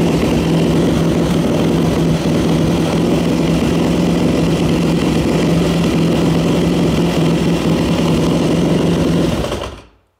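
2003 Yamaha WR450F's single-cylinder four-stroke engine running steadily at idle on the stationary bike. The sound cuts off shortly before the end.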